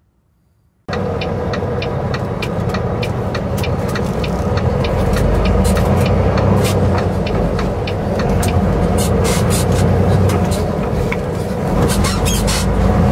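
Semi truck running at highway speed, heard from inside the cab: steady engine and road noise with frequent sharp clicks and rattles. It starts suddenly about a second in.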